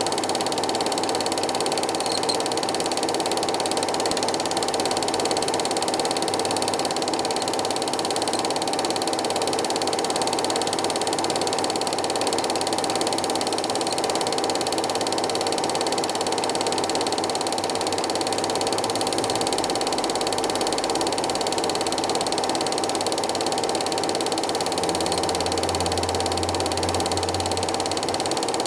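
Cine film projector running steadily: a continuous mechanical clatter with a constant whine.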